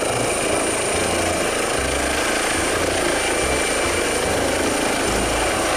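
Air ambulance helicopter running at full rotor speed as it lifts off the ground: a steady rotor and turbine noise with a continuous high whine.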